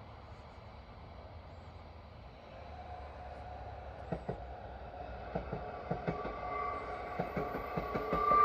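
ÖBB class 2016 'Hercules' diesel-electric locomotive hauling Cityshuttle coaches as it approaches, getting steadily louder. Wheels click over the rail joints from about four seconds in, and a steady whine builds near the end.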